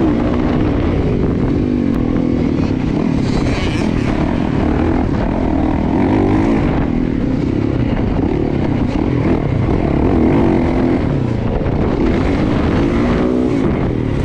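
Yamaha dirt bike engine being ridden hard on a motocross track, its pitch repeatedly rising and falling as the throttle is opened and shut through corners and jumps.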